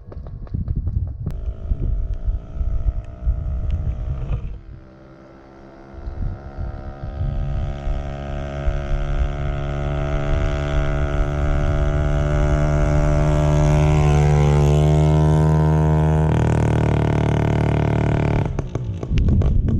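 Two-stroke moped engine with part of its exhaust removed, running unevenly at first. It then accelerates with its pitch climbing steadily and holds high, drops down in a step about sixteen seconds in, and stops shortly before the end.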